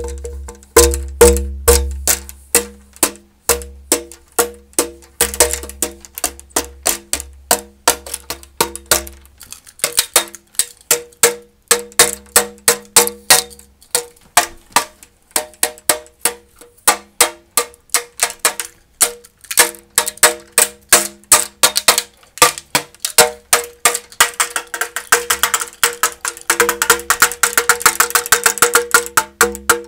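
Hands pounding on a hollow tubular boom pole case, each hit a ringing knock at the same few pitches, beaten in an uneven drum-like rhythm. The strikes speed up into a fast flurry near the end.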